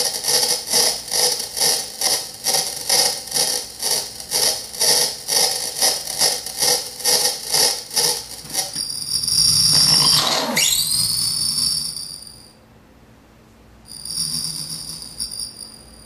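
Circuit-bent 'Sounds of Nature' toy flashlight's sound chip playing glitched electronic sound: a fast pulsing, about three pulses a second, that changes about nine seconds in to a high whistle-like tone. The tone swoops down in pitch and back up, fades out, then returns briefly near the end.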